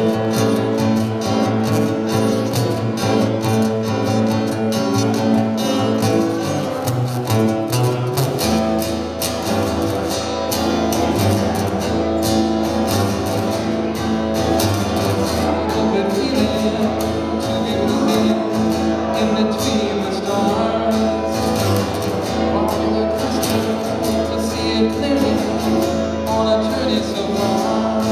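Acoustic guitar played live and amplified, a steady run of plucked and strummed notes; a deeper low part comes in about eight seconds in.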